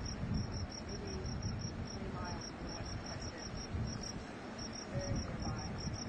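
Crickets chirping in a fast, even pulse of about six chirps a second, over a low, uneven rumble.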